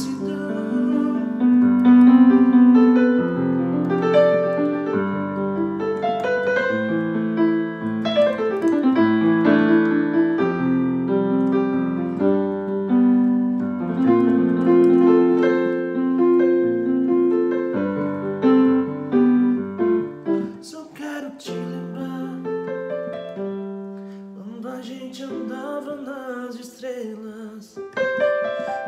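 Piano-voiced keyboard played solo: an instrumental passage of held chords under a melody, the chords changing every second or two and the playing growing sparser and softer after about twenty seconds.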